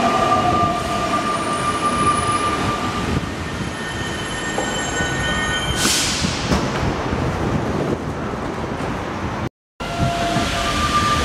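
Alstom NS-93 rubber-tyred metro train pulling into a station: its electric drive whines, the whine falling in pitch as the train brakes to a stop, then dying away after about three seconds. About six seconds in comes a sharp hiss of released air, fading over a second. After a break, the steady drive whine is heard again from inside a car.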